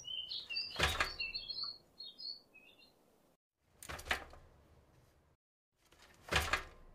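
Three knocks of thin wooden sticks being set upright into holes in a wooden model trolley bed, about one, four and six and a half seconds in. Birds chirp through the first two seconds.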